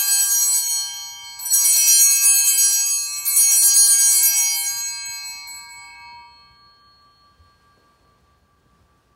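Altar bells rung three times at the elevation of the chalice during the consecration. Each ring is a bright jangle of many high tones, and the last rings on and fades away over several seconds.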